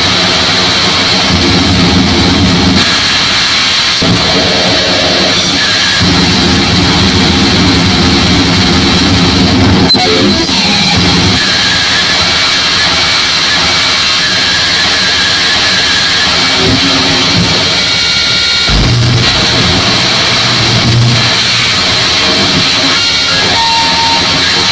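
Live harsh digital noise music in cut-up style: a loud, dense wall of distorted noise with a steady high whine, switching abruptly between textures every few seconds. A short low boom comes about three quarters of the way through.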